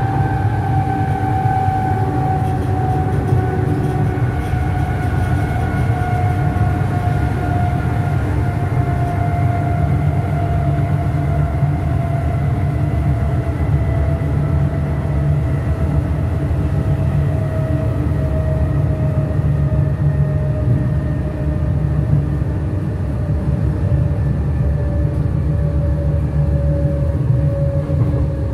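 Berlin S-Bahn class 485 electric train running with a steady low rumble and a motor whine that slides slowly and evenly down in pitch as the train gradually loses speed.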